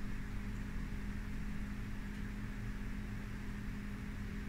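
Steady low machine-like hum with one constant tone under a faint even hiss, unchanging throughout; no clear clinks of the serving spoon stand out.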